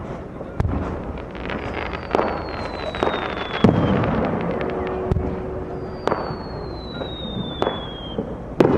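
Aerial fireworks shells bursting: about five sharp booms with rumbling tails. Two long whistles fall slowly in pitch in between.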